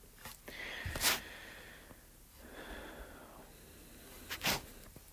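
A man's quiet breathing close to the microphone, with two short sharp intakes of breath, about a second in and again near the end.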